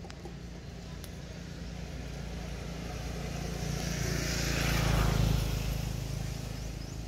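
A motor vehicle passes by. Its engine hum and tyre noise grow to a peak about five seconds in, then fade.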